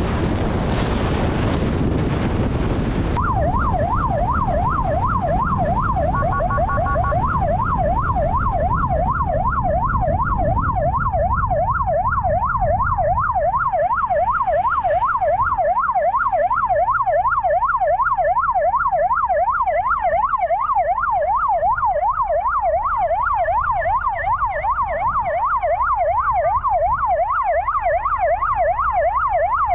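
Police motorcycle siren in a fast rising-and-falling wail, cutting in abruptly about three seconds in over rushing wind noise, then running on evenly as the wind dies away.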